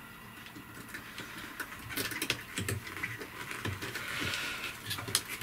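Gloved hands handling and twisting the frayed end of a thick stranded copper cable, with scattered light clicks and a soft rustle a little after the middle.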